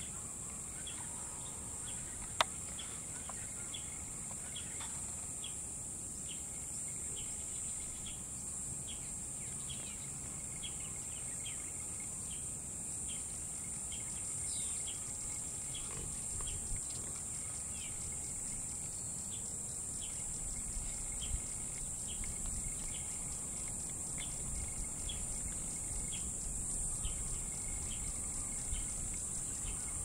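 Steady high-pitched insect drone, with short chirps repeating about once or twice a second and a faint low rumble underneath. A single sharp click sounds about two seconds in.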